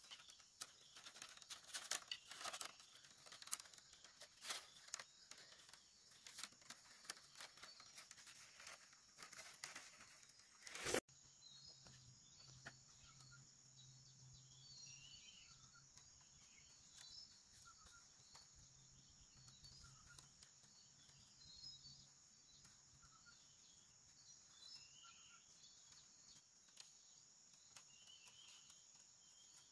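Irregular crackling, tearing and rustling of bamboo strips being worked by hand. About eleven seconds in it cuts off abruptly to a steady, faint insect drone with scattered soft chirps.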